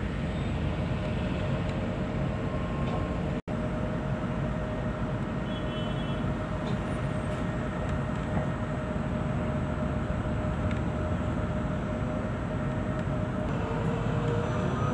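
Cabin noise of an electric bus on the move: a steady road and tyre rumble with a faint steady whine. The sound cuts out for an instant about three seconds in.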